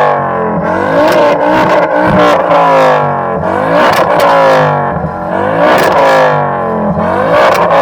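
A modified car's engine being revved hard over and over while stationary, its pitch rising and falling every second or so.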